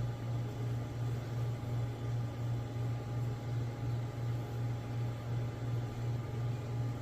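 A steady low mechanical hum, swelling and fading evenly about two and a half times a second.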